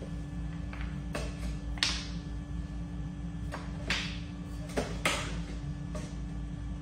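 A hand brush and cloth scrubbing and wiping a hard floor, in several short, sharp swishing strokes, over a steady low room hum.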